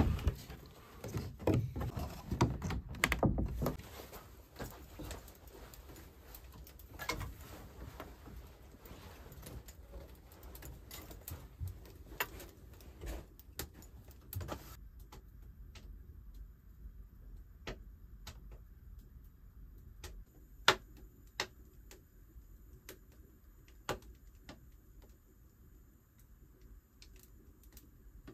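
Rustling and knocks of handling for the first few seconds, then, from about halfway, scattered sharp pops and crackles of a wood fire burning in a brick stove over a quiet background.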